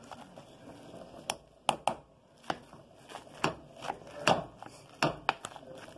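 Hand potato masher working through boiled potatoes in a metal pot, knocking against the pot about once a second at an uneven pace, some knocks in quick pairs.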